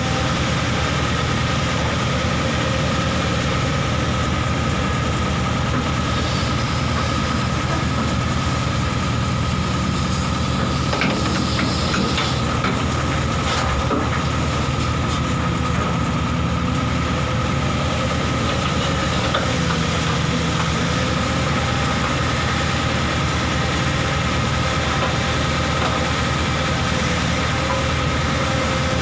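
Excavator's diesel engine running steadily, with a few light knocks about halfway through.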